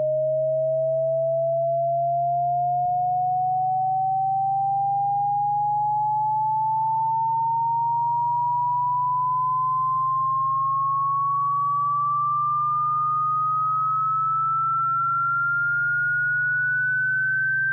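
Synthesized cat-repellent sound: a pure electronic tone sweeping slowly and evenly upward in pitch, over a steady low hum. The hum gives a single click about three seconds in.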